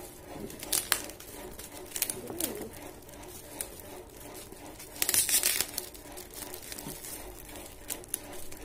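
Shiny metallic gift-wrapping paper being crinkled and torn off a box in short, separate crackles, with a louder stretch of tearing about five seconds in.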